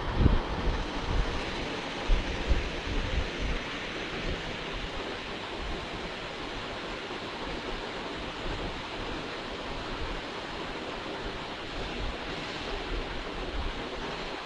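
Steady rushing noise with a few low thumps in the first four seconds.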